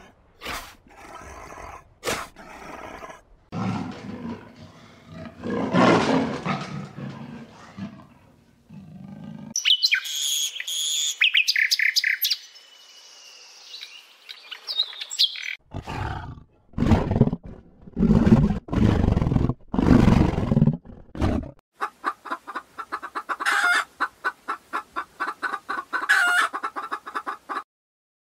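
A run of different animal calls: a sea lion's rough barks, then a common nightingale's high whistles and trills, then further loud low calls and a fast pulsing call.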